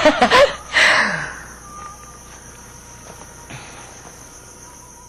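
A woman laughs briefly at the start. Then a steady, quiet, high chirring of crickets carries on as evening ambience in a film soundtrack.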